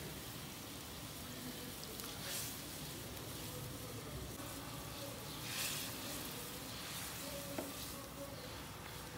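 Seasoned broth simmering in a metal wok with a steady bubbling hiss while raw chicken pieces are added and stirred in with a metal slotted turner. The hiss swells briefly twice, and there is one sharp tap near the end.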